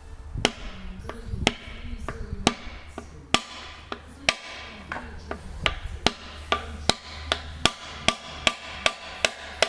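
Hammer blows on a hardwood block, driving a piston out of a cylinder of an AEC V8 diesel engine: sharp knocks about once a second, quickening to two or three a second after about six seconds, some with a short ring.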